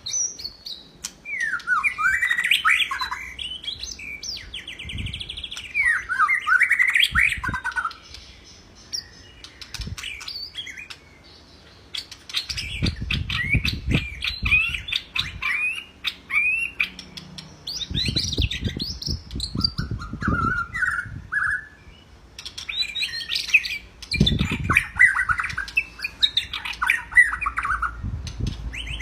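White-rumped shama singing vigorously: bursts of rapid, varied whistles and chattering notes, a few seconds each, with short pauses between phrases. A low rumble sits under some of the later phrases.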